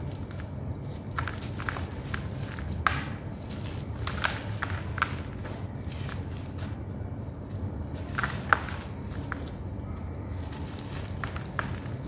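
Dry sand-cement chunks and dusty powder being crushed and rubbed between fingers: gritty crumbling with scattered sharp crunches and snaps, the loudest about eight and a half seconds in, over a faint low hum.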